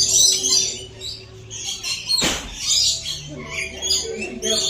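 Parrots chattering and screeching in many shrill, overlapping calls, with one louder call about two seconds in.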